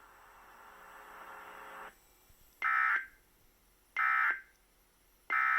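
A hiss that cuts off about two seconds in, then three short, identical bursts of Emergency Alert System SAME data tones about 1.3 seconds apart. These are the end-of-message signal that closes an EAS weather alert broadcast.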